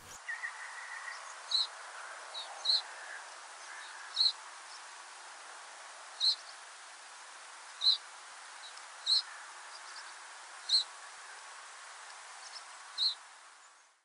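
Reed bunting giving its rasping, sparrow-like call, the call typical of autumn migrants: about eight short calls at uneven intervals of one to two seconds, over faint background noise.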